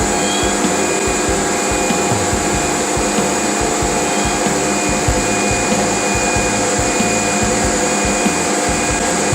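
CNC router running while carving wood: a steady machine noise with several held whining tones.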